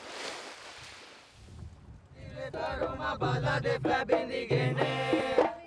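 A soft wash of noise, then from about two seconds in, voices singing a chant-like traditional song over a low sustained tone that drops in and out.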